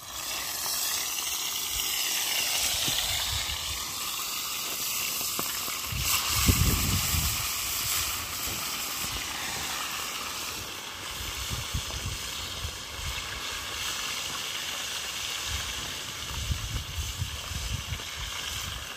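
Pieces of fish sizzling in a pot of hot oil over a wood fire: a steady frying hiss, with a few low bumps, the loudest about six seconds in.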